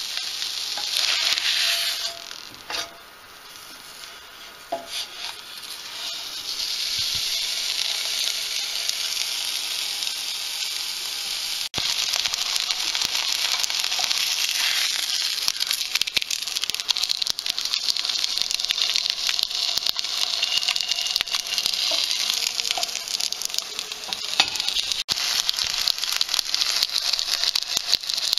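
Whole gilthead sea bream frying in a nonstick pan: a steady, dense sizzle that eases for a few seconds and then builds again, with a few light knocks of a wooden spatula against the pan.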